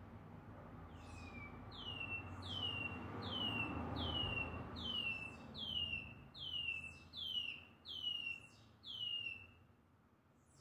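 A caged chorona songbird singing a long run of clear whistles, each sliding downward, about two a second, coming back into song after its molt.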